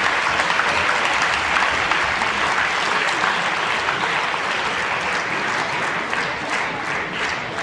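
Arena crowd applauding after a point, a dense patter of clapping that thins out and softens near the end.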